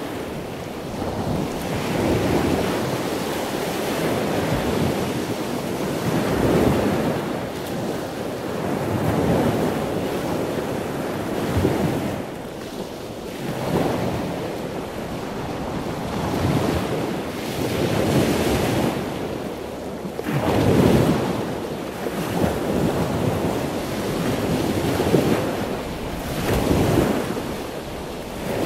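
Rushing sea-water noise that swells and fades about every two seconds, with no tone or voice in it.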